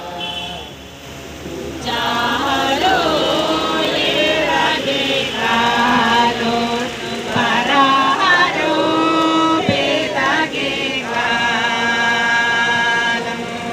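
A group of worshippers chanting a prayer song together, the voices coming in strongly about two seconds in and carrying on until near the end.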